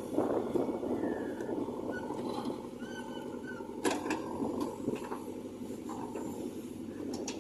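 JCB 3DX backhoe loader's diesel engine running steadily under working load, with a sharp metallic knock about four seconds in and another near the end.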